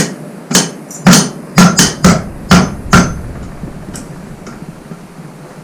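Hammer blows on metal, about eight quick strikes in three seconds with a short metallic ring after some of them, then two lighter taps.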